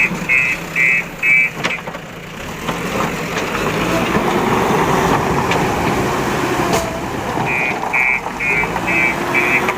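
JCB 3DX backhoe loader's engine running under working load, rising and falling in pitch. A reversing alarm beeps about twice a second in the first couple of seconds and again near the end.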